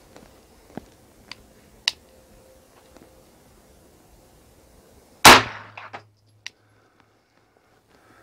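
A single shot from a Beretta 92FS pistol firing one 9mm Luger round, about five seconds in, loud and sudden with a short echoing tail and a few sharp clicks just after. A few faint light clicks come before it.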